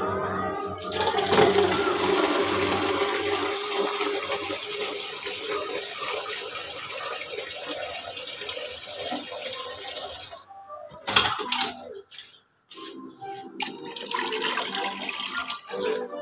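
Water running steadily for about nine seconds, then stopping, followed by a few short clatters.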